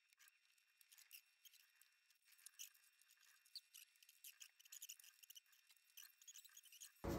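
Faint, light scratching of a pastel stick drawn and rubbed across paper, in many short strokes. Music cuts in suddenly at the very end.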